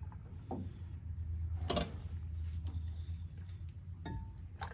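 A few sharp metallic clicks and knocks as a brake caliper is handled and slid back onto the disc rotor, over a steady high-pitched background drone and a low hum.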